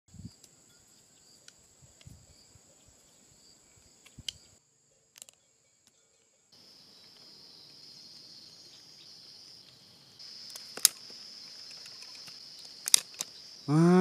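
Steady high-pitched insect chorus, broken by a few sharp clicks. It drops out briefly about five seconds in and comes back, louder from about ten seconds in. Right at the end a loud pitched call begins.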